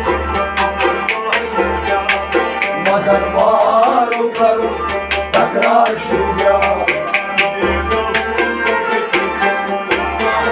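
Harmonium playing the melody of a Kashmiri Sufi kalam, with a hand drum beating a steady rhythm of sharp strokes under it.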